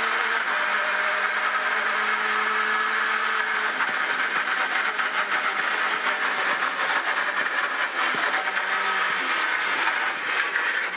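Ford Escort rally car's engine running at speed, heard from inside the cabin, over a steady hiss of tyre spray off the wet road.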